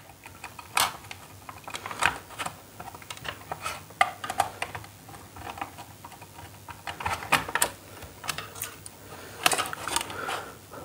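Irregular light clicks and taps of a red wire and fingers against a plastic modular switch board as the wire is pushed into a switch terminal.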